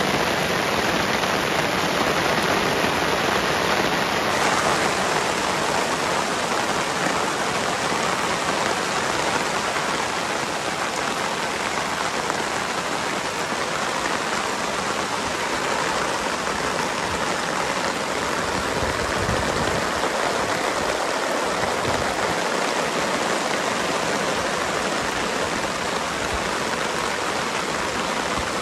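Heavy rain falling steadily: a dense, even hiss with no distinct drops or breaks.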